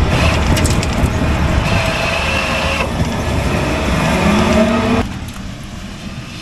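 Small motor vehicle engine running hard, with a rising pitch shortly before it eases off and gets quieter about five seconds in.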